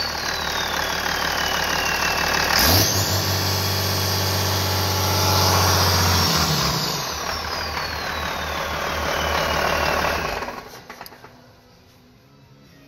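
Cummins 6CTA8.3 inline-six turbo diesel fire-pump engine running, revving up about three seconds in with a high whine rising alongside, holding, then easing back as the whine falls away; the sound drops away sharply near the end.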